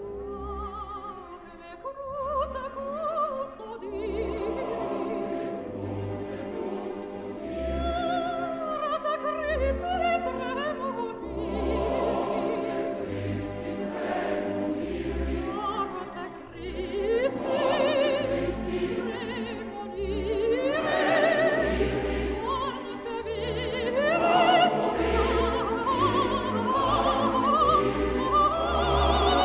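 Opera music: singing with wide vibrato on long held notes over an orchestra, growing louder toward the end.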